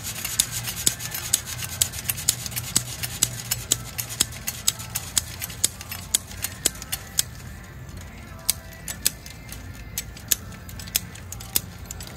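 In-line ratchet wire tensioner being cranked with a handle tool, clicking about twice a second as it winds the brace wire tight on a wooden H-brace; the clicks grow fainter and less regular about halfway through.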